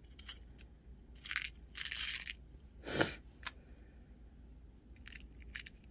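Small pressed-glass silky beads rattling and clattering as they are poured from a plastic triangle bead tray into a small clear plastic box, in two quick bursts, then a duller knock about three seconds in and a few light clicks near the end.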